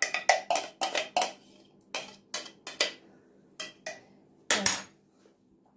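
A utensil scraping and tapping inside a hand-blender's chopper bowl, knocking garlic paste out into a glass mixing bowl: a quick run of clicks and clinks, then one louder knock with a short ring about four and a half seconds in.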